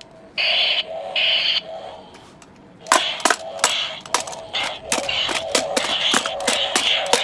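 Toy lightsaber's electronic sound effects from its built-in speaker: a steady hum, two short loud bursts in the first two seconds, then from about three seconds in a fast run of crackling clicks over the hum.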